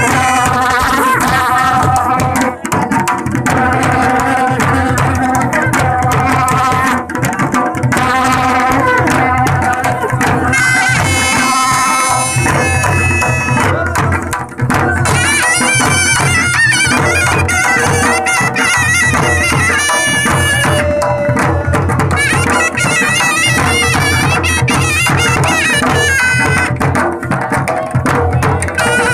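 Kullu nati folk dance music: a reedy wind instrument plays a wavering, sustained melody over steady drumming.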